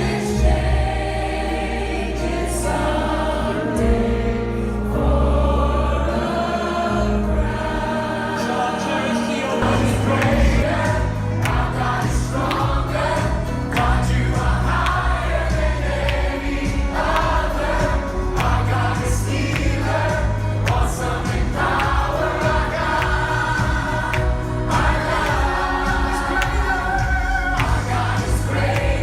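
Music: a choir singing a gospel-style song with instrumental backing and a steady bass line.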